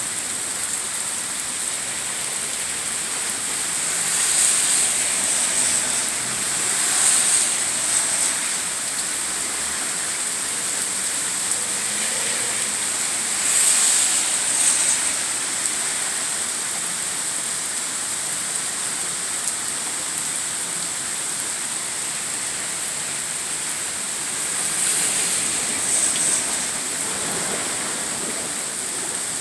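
Steady rain falling in a rainstorm, an even hiss that swells louder for a second or two four times.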